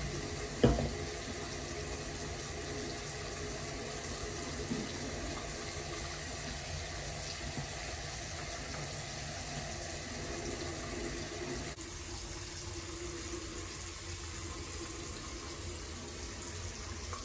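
Steady, even rushing noise in a small tiled bathroom, with one sharp click under a second in.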